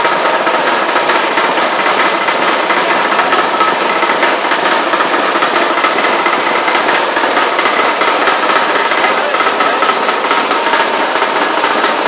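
Continuous pasteurization line for bagged pickled vegetables running: a steady, dense machine noise from its conveyor and drive, with a fine rattle and a faint steady whine.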